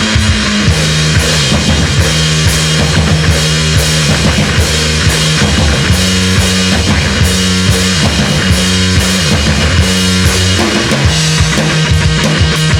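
A live rock band playing an instrumental passage: a full drum kit with bass drum and snare, distorted electric guitars and a repeating bass riff, with no vocals.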